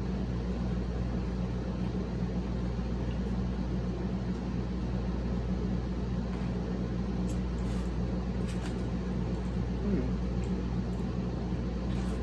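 Steady low mechanical hum, like a fan or air conditioner running, with a few faint soft clicks about two-thirds of the way through.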